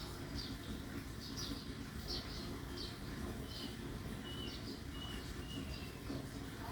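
Small birds chirping in short, high calls and brief falling whistles, about once or twice a second, over a faint low background hum.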